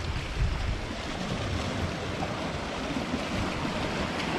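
Sea waves washing against the shore in a heavy swell, a steady rushing wash that grows a little louder near the end.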